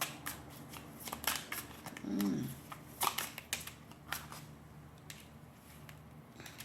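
Tarot cards being shuffled and handled: a run of crisp card snaps and flicks over the first four seconds or so, then quieter handling.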